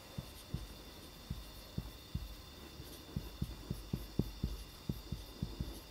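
Marker writing on a whiteboard, heard as a faint, irregular run of soft low knocks, about three a second, more frequent in the second half, over a faint steady hum.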